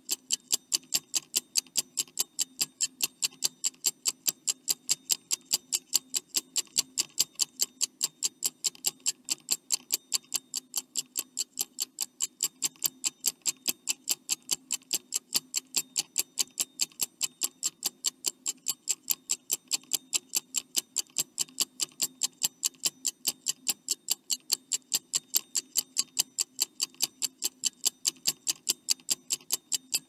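Clock ticking sound effect: quick, evenly spaced ticks that keep a steady rhythm throughout, over a faint low hum.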